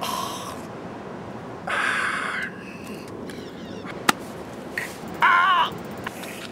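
A man crying out in pain: three strained, wavering wails, the last about five seconds in, with a single sharp click a little after four seconds.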